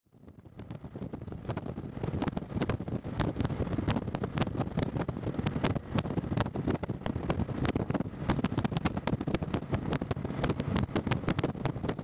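Wind buffeting the microphone of a camera on a motorcycle moving at motorway speed, with the motorcycle's engine and road noise underneath: a dense rumble full of rapid irregular pops, fading in over the first two seconds.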